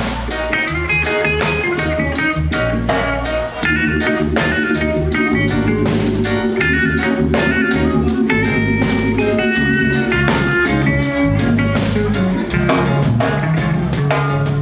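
Live band playing an instrumental passage with no vocals: drum kit keeping an even beat under a bass line, guitar, and a melodic lead line, with a held chord through the middle.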